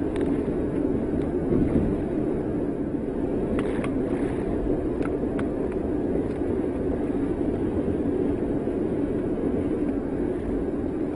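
Steady road and engine noise inside a moving car's cabin, with a few faint clicks about four to five seconds in.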